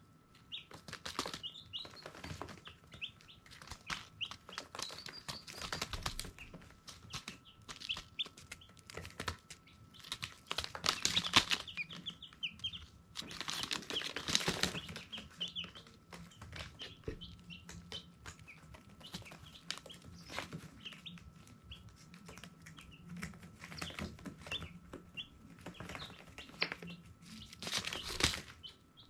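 Baby chicks peeping, many short high chirps overlapping throughout. Scratchy rustling bursts come and go, loudest about a third and halfway through, over a faint steady hum.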